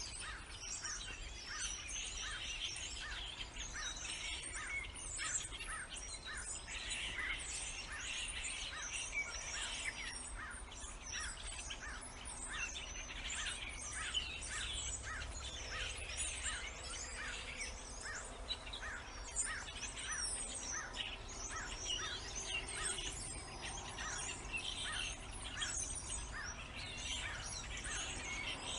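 Songbirds chirping and calling together in a steady chorus of short, high notes, several a second, over a faint low background rumble.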